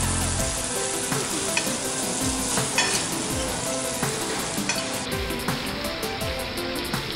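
Shrimp, meat and vegetables sizzling on a steel teppanyaki griddle, with a metal spatula scraping and clicking against the hot plate a few times as the food is stirred.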